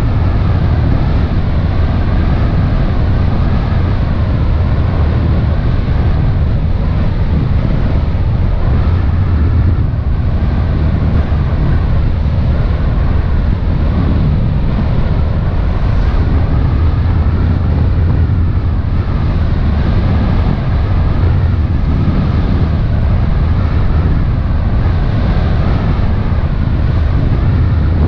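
Motor launch engines running steadily while underway, a constant low drone, with wind buffeting the microphone and water rushing past the hull.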